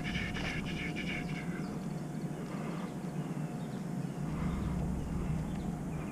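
Outdoor night street ambience with a thin steady hum; a low rumble of distant traffic swells about four seconds in.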